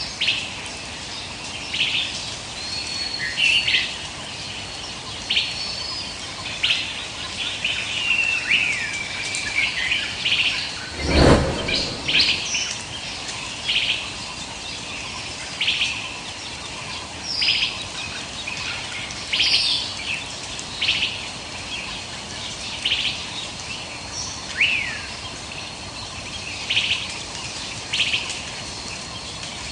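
Birds chirping: short calls and a few whistled glides repeating every second or two over a steady hiss, with one loud low thump about eleven seconds in.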